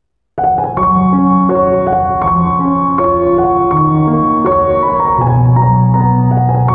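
Background piano music: a gentle keyboard melody of notes changing about every half second over a held bass, starting about a third of a second in.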